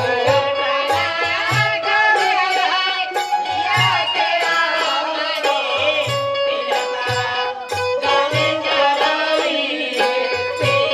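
Live Indian folk stage music: a sustained, wavering melody over a low hand-drum beat, with high metallic ticks keeping time.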